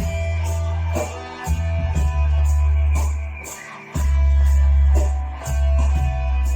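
Guitar music with a deep, sustained bass line under it and a steady ticking beat, about three to four ticks a second. The bass drops out briefly about three and a half seconds in.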